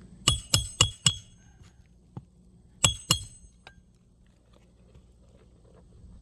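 Roofing hatchet driving nails into asphalt 3-tab shingles: four quick strikes about a quarter second apart, then two more about two seconds later, each with a short metallic ring.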